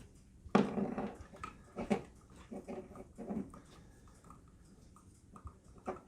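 A dog giving several short whines and vocal calls in the first three and a half seconds, the loudest about half a second in.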